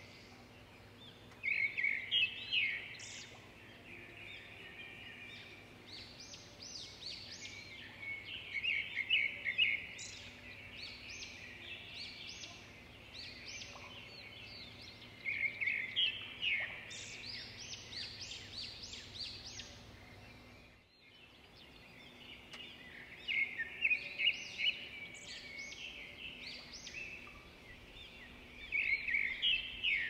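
Birds chirping in high-pitched bursts of rapid notes, returning every several seconds over faint outdoor background noise.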